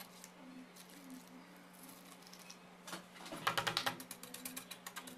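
Wet concrete being smoothed in a tin mould: a quick run of scraping clicks from a small metal tool working the surface and rim, starting about three seconds in, over a steady low hum.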